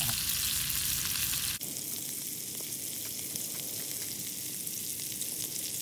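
Needlefish fillets sizzling as they fry in butter and garlic in a small pan: a steady hiss with fine crackles. About a second and a half in the sound changes abruptly and the low rumble under it drops away.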